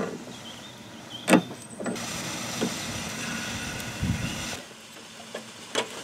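Water rushing through a just-opened brass tap into the steam generator's feed pipe: a steady hiss with a faint high whine and a sharp metal click about a second in. The hiss stops abruptly about four and a half seconds in, and a couple of short metal knocks follow near the end.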